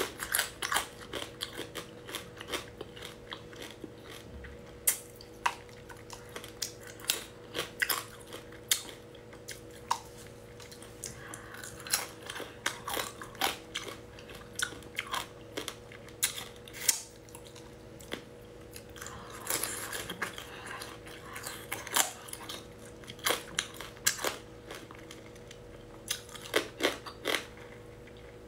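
Close-up chewing and biting of small whole crabs, their thin shells crunching and cracking in irregular sharp snaps with wet chewing between, over a faint steady hum.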